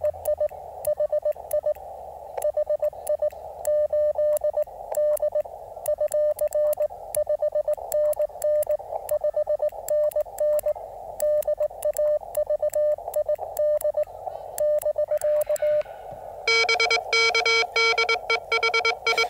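Morse code (CW) from a ham radio receiver: a slow-sent keyed tone at one steady pitch, heard through a band of receiver static. About three seconds before the end, a louder, brighter keyed sidetone at a slightly lower pitch takes over as the operator's own sending.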